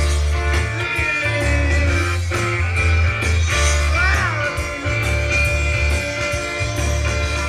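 Rock band playing live: electric bass and electric guitar through amplifiers, with steady low bass notes and a note bending up and back down about four seconds in.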